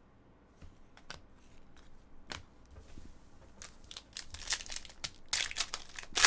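A trading card pack wrapper crinkling and tearing as it is opened, in irregular rustles and snaps that grow louder toward the end.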